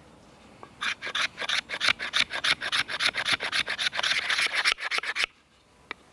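Knife blade scraping fine shavings off a wooden stick held upright against a log, a fast run of rasping strokes at about four or five a second that stops about a second before the end.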